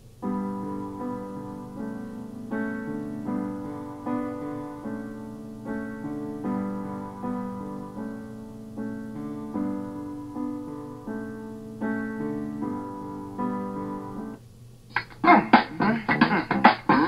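Music from the 1byOne turntable's built-in speaker: repeated electric-piano chords with no treble at all, then about 15 s in a different, brighter passage starts with a strong, punchy beat.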